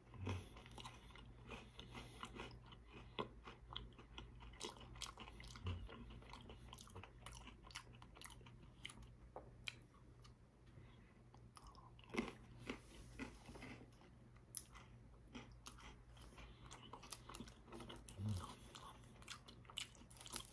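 Close-up chewing of crisp chocolate-cream-coated biscuit sticks: quiet, irregular crunches with a few sharper cracks, the sticks chilled in the fridge for extra snap.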